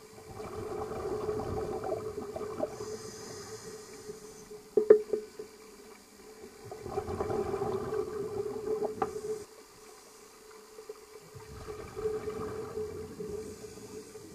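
Scuba diver breathing through a regulator underwater: three bursts of exhaled bubbles, each a few seconds long, with quieter gaps between. A sharp knock about five seconds in is the loudest sound, over a steady low hum.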